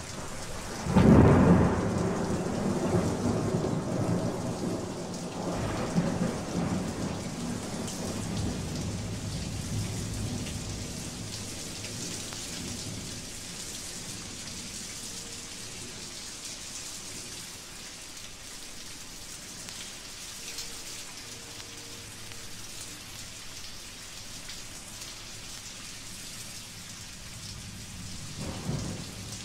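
Thunderstorm field recording played from a 1956 vinyl record: a sharp thunderclap about a second in that rolls away over several seconds, with a second peal around six seconds, over steady rain. Another rumble of thunder begins near the end.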